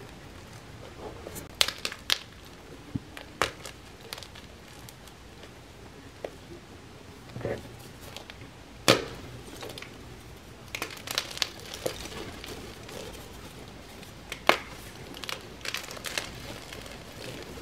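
A block of gym chalk crushed and squeezed between bare hands, crumbling with scattered dry crunches and sharp cracks. The loudest crack comes about nine seconds in, with bursts of smaller crunches later on.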